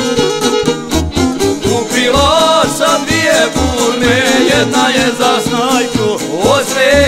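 Bosnian izvorna folk band playing an instrumental passage: a violin carries a wavering melody over šargija and guitar accompaniment with a steady low beat.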